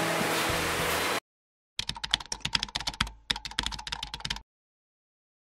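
Background music that stops abruptly about a second in, then a computer-keyboard typing sound effect: two quick runs of rapid key clicks with a short break between them.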